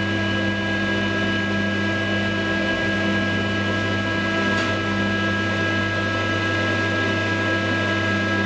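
Traction elevator running in its shaft, heard from inside the moving car: a steady hum of machinery with several held tones.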